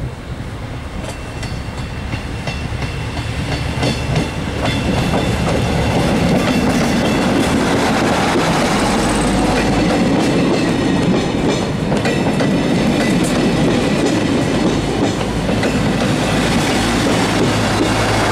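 Diesel train of X 2100 railcar and trailer coaches approaching and passing close by, its wheels clicking over the rail joints. The rumble builds over the first several seconds, then stays loud and steady as the coaches roll past, with a low engine hum joining about halfway through.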